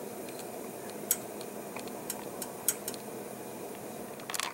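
Propane burner flame of a Dometic RV absorption fridge burning with a steady, soft rush, under a few sharp, irregular ticks.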